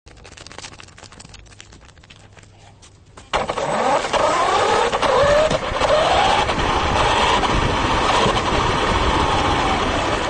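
Radio-controlled car setting off suddenly about three seconds in and driving over a rough road. A motor whine rises and falls in pitch with its speed, over steady noise from the tyres and the road.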